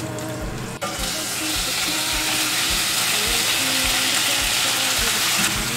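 Ginger slices sizzling in hot sesame oil in a frying pan. About a second in, chicken pieces go into the pan, and the frying becomes louder and denser as they are stir-fried, then eases slightly near the end.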